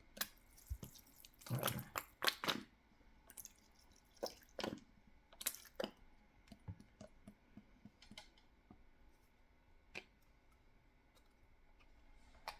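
Irregular clicks, taps and rustles of hands handling packaging and containers, busiest in the first half and thinning out later, with a lone click near the end.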